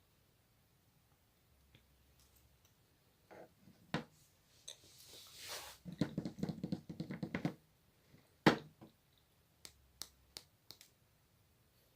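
Close-miked eating sounds of someone eating a macaron: scattered mouth clicks, a short breath, then a couple of seconds of dense chewing, with one loud sharp click about eight seconds in and a few lighter clicks after it.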